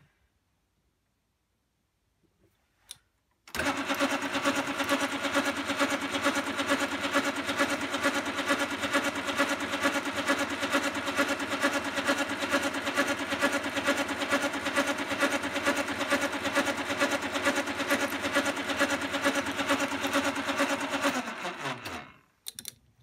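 A bench metal-turning lathe switched on after a click, starting abruptly about three and a half seconds in. It runs steadily with its chuck spinning while the new shock-absorber bush is machined to size. Near the end it is switched off and winds down, its pitch falling.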